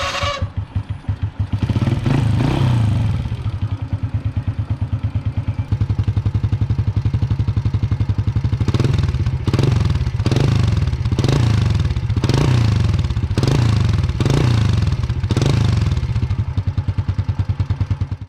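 Restored 1997 Honda EX5 High Power's small four-stroke single-cylinder engine idling, revved once about two seconds in. In the second half it is blipped about eight times in quick succession, each rev rising and falling back to idle.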